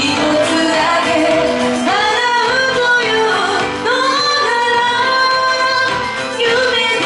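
A woman singing live into a handheld microphone over musical accompaniment, holding long notes.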